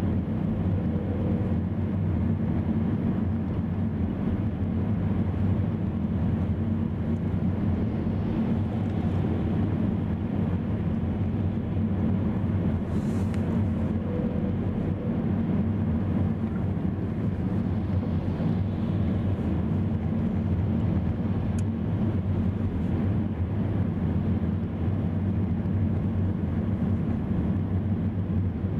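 Steady low drone of tyres and engine heard from inside a car cruising at highway speed.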